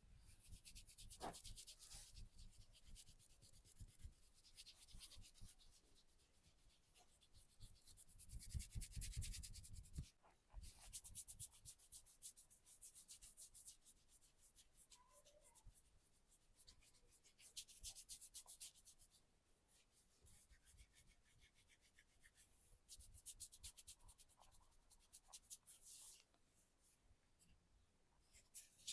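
Hands rubbing and scratching during a massage: rapid scratchy strokes in several stretches with short pauses between them.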